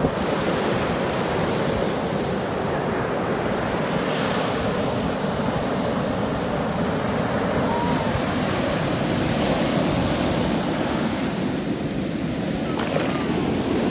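Rough ocean surf breaking offshore and foamy wash running up the sand, a steady rush of water.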